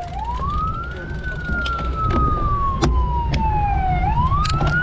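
Emergency vehicle siren wailing: its pitch climbs quickly, sinks slowly over about three seconds, then climbs again near the end. A steady low rumble runs underneath.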